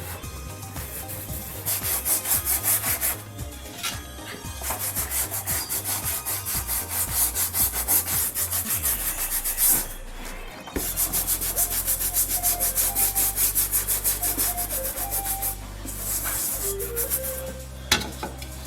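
Toothbrush scrubbing baking soda paste into a sneaker with quick back-and-forth strokes, several a second, in spells with short pauses.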